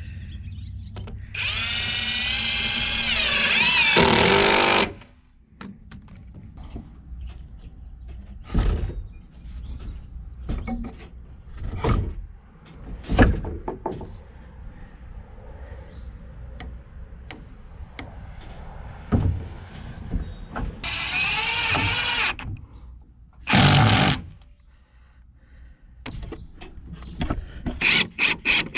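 Power drill driving screws into wooden roof trusses: a long whining run near the start, then a shorter run about 21 seconds in and a brief burst after it. Scattered knocks fall in between.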